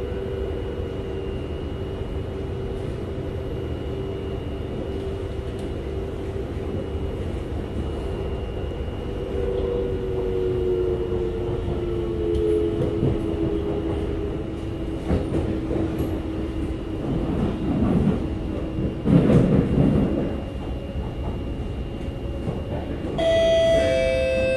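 Interior sound of a moving SMRT C751B metro train: steady wheel and track rumble with a motor whine that slides lower in pitch around the middle, then louder rumbling for a few seconds. Near the end a descending two-note chime sounds, the opening of an onboard announcement.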